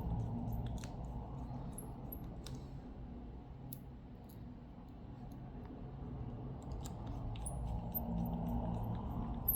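Scattered light clicks and ticks of small repair tools and parts being handled on a smartphone, over a steady low hum.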